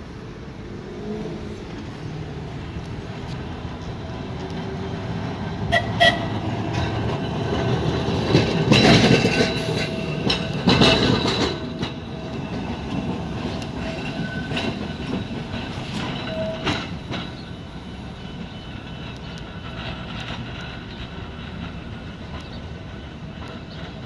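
Electric open-top Blackpool Boat tram pulling away and passing close by, its motors and steel wheels rumbling and clattering on the street rails, with a few clicks and brief ringing tones. It is loudest as it goes by, about nine to eleven seconds in, then fades as it moves off.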